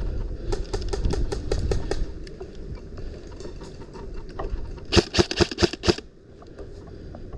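Airsoft gun firing: a quick burst of about six sharp, loud shots about five seconds in, after a run of fainter rapid ticks in the first two seconds.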